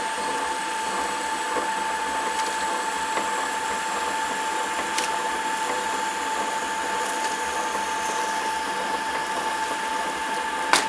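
Small lathe running with a steady whine while a parting tool cuts off a piece of acetal (Delrin) rod; a short sharp click near the end.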